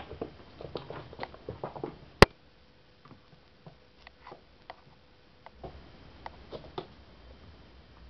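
Irregular light taps, knocks and scrapes of a cat playing with a toy mouse on the floor, with one sharp click about two seconds in.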